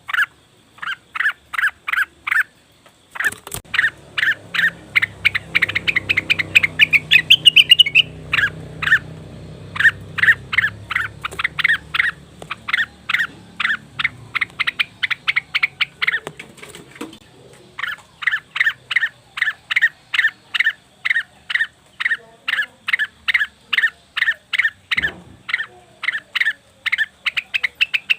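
Leafbird (cucak wilis) calling as a lure: a long series of short, sharp notes repeated about two or three times a second. A low rumble sits under the calls in the first half, and there is a single knock near the end.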